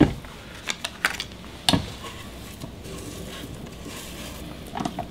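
A sharp clunk as the tilt-head of a KitchenAid stand mixer is raised, lifting the whisk out of the stainless-steel bowl, followed by a few lighter clinks and knocks of a spatula scraping against the bowl and whisk.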